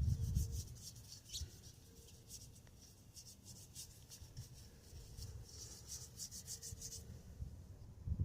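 A brush spreading glue onto the rubber of a tractor tire's sidewall: a quick run of faint, scratchy strokes that stops about seven seconds in.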